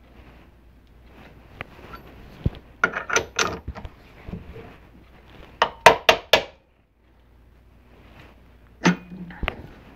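Metal clanks and knocks of a machine vise and its handle on a small milling machine's table, with tools and parts being handled. They come in two clusters, about three seconds in and about six seconds in, then two single knocks near the end.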